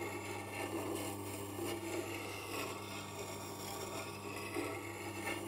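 Tormek T-8 wet sharpener running with a steady low hum, while a steel roughing gouge held in a jig is rolled back and forth against the wet grindstone with a faint, even rubbing scrape.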